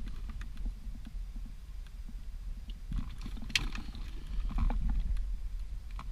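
Rubber cable boot being worked loose and pulled out of a car's floor pan: scattered rubbing and knocks, with one sharper click about three and a half seconds in, over a low rumble.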